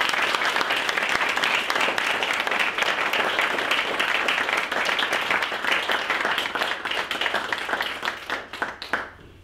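A small seated audience applauding, the clapping thinning out to a few last claps near the end.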